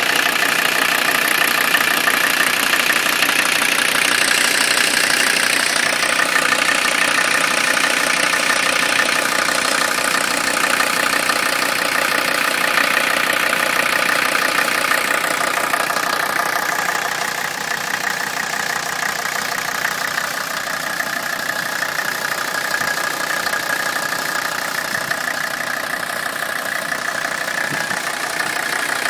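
Mercedes-Benz 300SD's five-cylinder turbodiesel engine idling steadily with the usual diesel clatter. It is idling rough enough to shake the car, worsening as it warms, on injector nozzles due to be replaced.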